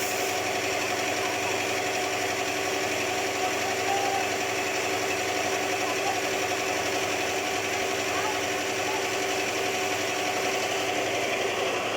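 A steady engine or motor running at constant speed: an even hum with an unchanging pitch.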